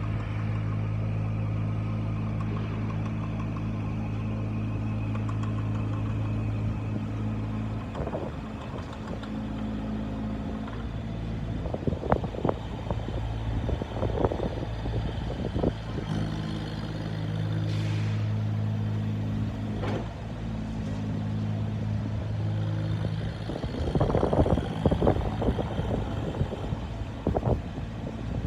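2018 JCB 8008 micro excavator's diesel engine running steadily, with irregular knocks and clatter from the machine in several stretches, loudest near the end.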